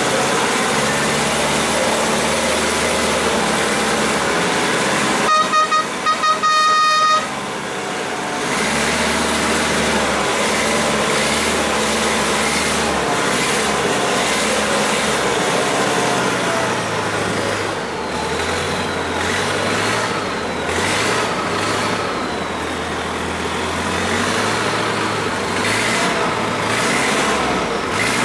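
Passenger riverboat's engine running steadily, with water rushing along the hull. About five seconds in, a horn sounds in a quick series of short toots.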